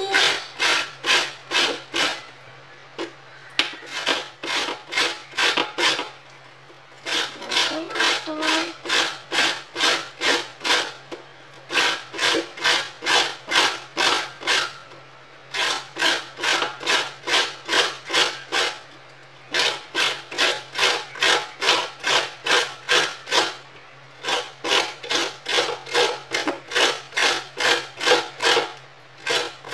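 Broccoli being grated on a metal hand grater to make broccoli rice: quick rasping strokes, about three a second, in runs of several seconds broken by short pauses. A steady low hum runs underneath.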